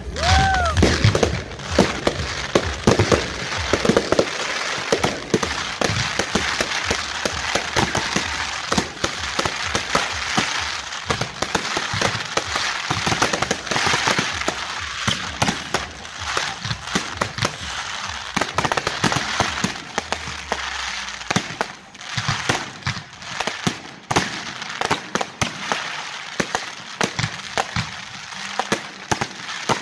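Fireworks display going off: a dense, continuous stream of crackling and sharp bangs, with a short whistle that bends in pitch just after the start.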